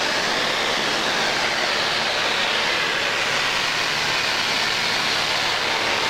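Steady drone of a small plane's engine heard from inside the cabin in flight: an even rushing noise with a faint low hum under it.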